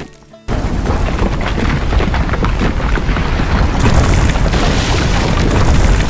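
Cartoon rockslide sound effect: a loud rumble of falling rocks starts suddenly about half a second in and keeps going, thick with crackling and clattering stones that grow brighter in the second half.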